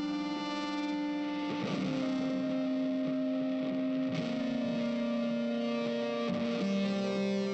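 Background music: sustained, effects-laden guitar notes, changing pitch every second or two.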